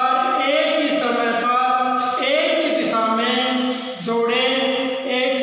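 A man's voice talking continuously, explaining a maths problem.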